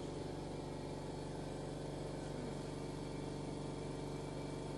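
Toyota Carina ED car engine idling steadily, an even unchanging hum with no revving.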